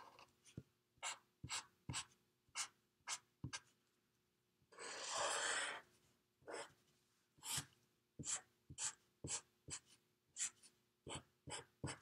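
Felt-tip marker drawing on paper: a run of short, faint strokes with small pauses between them, and one longer, louder stroke-like rush of about a second about five seconds in.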